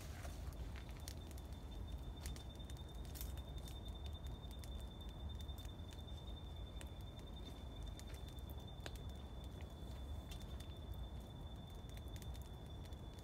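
Twig fire crackling in a small kettle barbecue, with scattered sharp pops and snaps. A thin steady high tone runs alongside.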